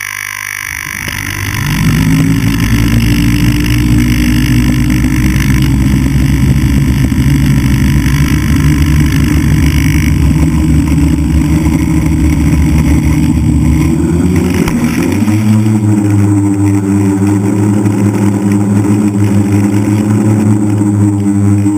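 A DJI Flame Wheel F550 hexacopter's six brushless motors and propellers, heard from a camera mounted on the frame. They spin up about a second in and run with a steady whir. About fifteen seconds in the pitch rises as the throttle is opened and the hexacopter lifts off.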